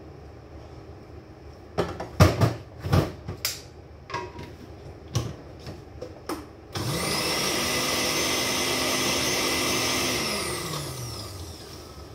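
A few sharp knocks and clatters as the blender jar is handled, then an electric countertop blender starts abruptly about seven seconds in to blend parsley. It runs steadily for about three seconds, then winds down with a falling pitch.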